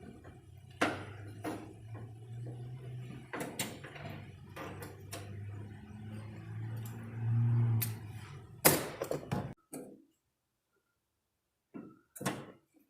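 Irregular plastic-and-metal clicks and knocks as a 2009 Ford Ranger's plastic tailgate handle is wiggled and pushed into the tailgate latch, over a low steady hum, with a louder run of knocks about nine seconds in.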